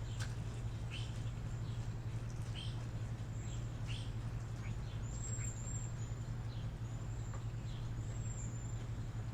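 Wild birds chirping, with short, high, falling calls scattered through, over a steady low hum.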